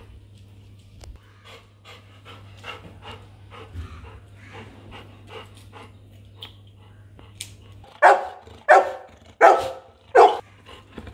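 Golden retriever panting in a steady rhythm of about three breaths a second, then breaking into a run of loud barks near the end.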